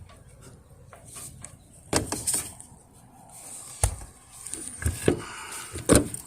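A few scattered knocks and rubbing scrapes from a scrubbing pad and pole worked against skylight glass, at irregular intervals with quiet between.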